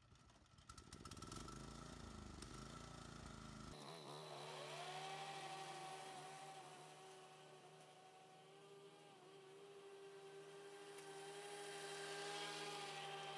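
Toro commercial lawn mower's engine running. About four seconds in it speeds up to a steady high-speed hum, and it grows louder and fainter as the mower moves across the lawn.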